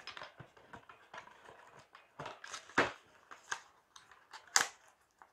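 Glass oil bottle and its cardboard box being handled and packed: light scrapes and rustles with a few sharp knocks, the loudest about three and about four and a half seconds in.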